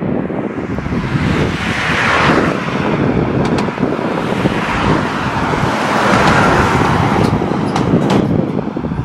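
Road traffic passing close on a highway bridge, a heavy truck among the vehicles: engine and tyre noise swells about two seconds in and again about six seconds in.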